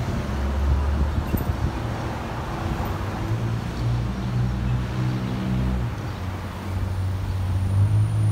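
Cars, including a pickup truck, driving through a street intersection, with a low engine hum from the passing vehicles.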